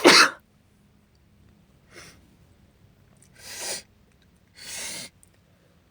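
A woman's sneeze bursts out right at the start. It is followed by a short sniff about two seconds in and two longer, louder sniffs through a congested nose near the end.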